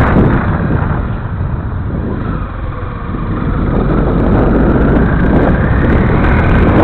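Honda CRF250L's single-cylinder four-stroke engine on a gravel track, easing off about a second in, then pulling back up with rising pitch, mixed with wind buffeting the microphone.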